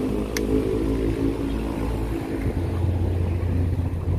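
Motor vehicle engine running steadily, its low drone growing stronger about two and a half seconds in, with a single sharp click about half a second in.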